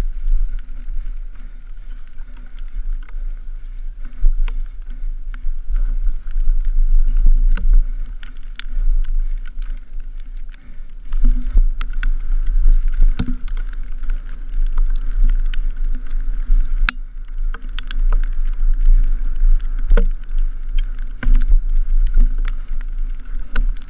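Wind buffeting a helmet camera's microphone as a mountain bike rides fast over rough trail, with frequent sharp clicks and knocks from the bike rattling over the ground.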